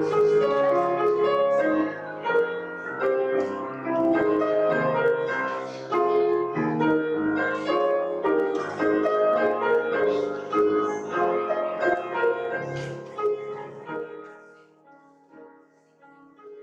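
Piano playing a postlude: a run of separate notes that thins out and dies away about 14 seconds in.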